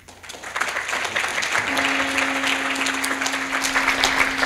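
Audience applause building up quickly and keeping going. A steady low tone joins about a second and a half in.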